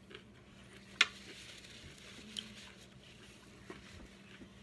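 Chopsticks picking at fried rice on a glass plate: a faint scraping and rustling, with one sharp click against the plate about a second in and a few faint ticks later.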